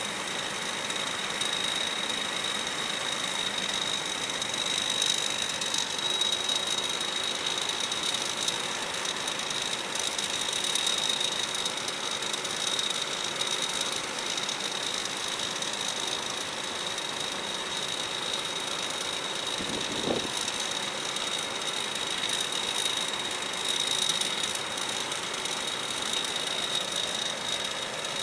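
Combine harvester running steadily while unloading harvested rice into a truck, with a constant high-pitched whine over the machinery noise.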